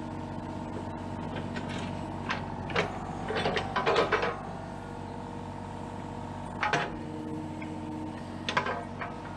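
Kubota KX033-4 mini excavator's diesel engine running steadily, with bursts of scraping and clanking from the bucket working in the dirt, a cluster in the first half and a few more later.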